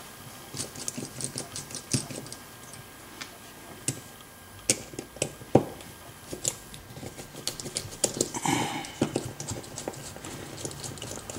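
Light, irregular clicks and taps of a disassembled lock cylinder and its small metal parts being handled and set down on a work surface, with a brief rustle about eight seconds in.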